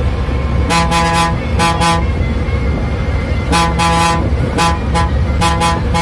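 A bus horn sounding in quick bursts of short toots on one pitch: a cluster about a second in, then a longer run of toots from about three and a half seconds in. Under it runs the steady low rumble of the bus's diesel engine, heard from inside the driver's cabin.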